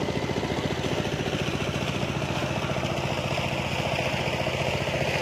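An engine running steadily at an even, unchanging speed.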